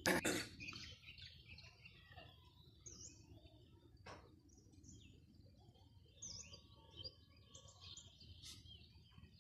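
Small birds chirping faintly, with many short calls scattered throughout, over a low rumble of wind or handling noise. A brief knock at the very start is the loudest moment.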